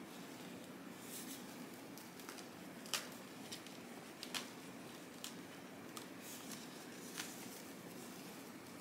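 Faint, scattered crackles and small snaps of a plant stem's aerial roots being pulled out of damp sphagnum moss on a moss pole, the roots tearing loose as it comes away.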